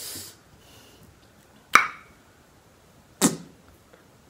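A short hiss at the start, then two sharp clicks about a second and a half apart.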